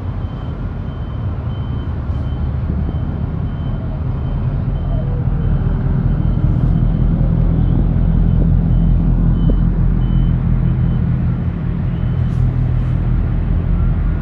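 Deep, steady rumble and hum from a large container ship under way as its stern passes close by, swelling to its loudest partway through.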